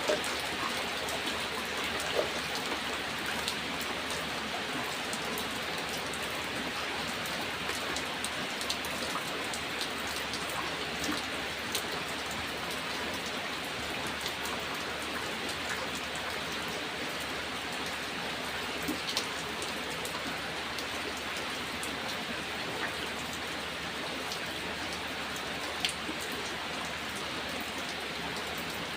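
Steady rain falling, an even hiss with individual raindrops ticking now and then.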